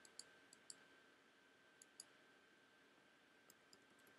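Faint computer mouse clicks: a quick run of clicks in the first second, a couple about two seconds in and a few more near the end, over near-silent room tone with a faint steady high whine.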